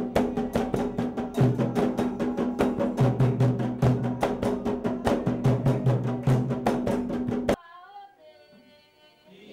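Atabaque hand drum played fast with bare hands, a dense run of strokes that cuts off suddenly about seven and a half seconds in. Faint group singing of women's voices follows.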